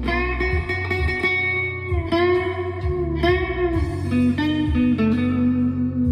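Chapman ML1 Pro Hybrid electric guitar playing a lead line through overdrive with delay and reverb. It holds sustained notes, and several are bent up and back in pitch.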